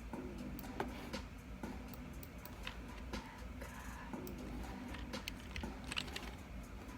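Irregular light clicks and taps, a few a second, like keys being typed on, over a low steady hum.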